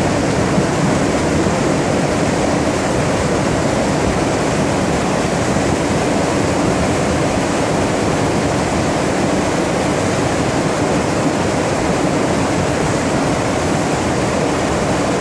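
Floodwater rushing through a town street: a loud, steady rush of water that does not let up.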